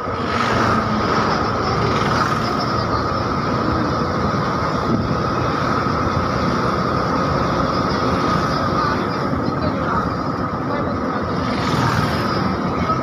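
Steady engine and road noise of a moving bus, heard from inside the cabin with the window open.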